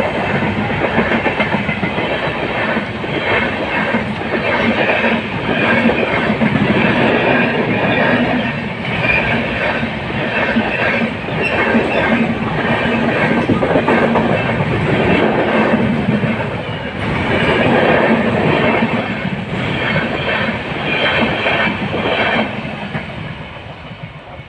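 A train passing close by, its wheels clattering rhythmically over the rail joints. The noise dies away near the end as the train clears.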